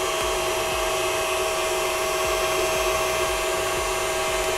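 KitchenAid stand mixer's motor running steadily at its lowest speed, an even hum with a few fixed tones, as the beater mixes the dry ingredients into the cupcake batter.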